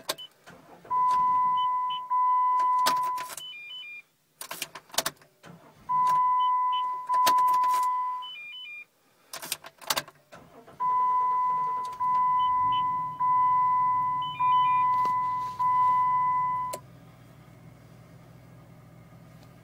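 Car ignition attempts with a failing starter: sharp clicks of the key and starter, a loud steady beep in three long stretches, and from about two-thirds of the way in a low engine hum that carries on faintly after the beeping stops.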